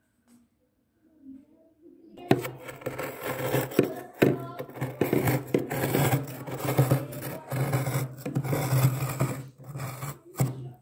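Large steel spoon scraping soft, flaky frost off the inside of a freezer, in many quick strokes that begin about two seconds in and stop just before the end.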